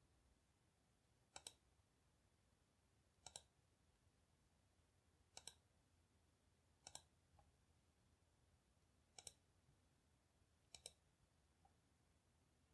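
Six faint computer mouse clicks, about one to two seconds apart, each a quick double tick, over near-silent room tone.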